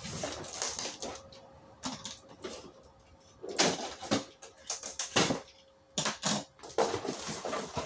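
Cardboard box being handled and opened, with irregular scrapes, bumps and rustling of packing paper, broken by short quiet pauses.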